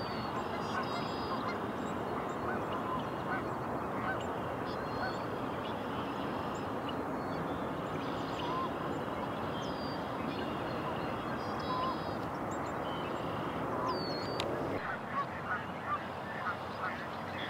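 Waterfowl calling across a marsh, many overlapping calls over a steady background rush, with short high bird chirps above them. The background rush drops suddenly near the end, leaving separate short calls.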